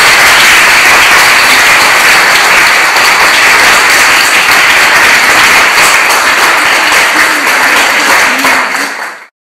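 Audience applauding steadily in an echoey room, then cutting off suddenly near the end.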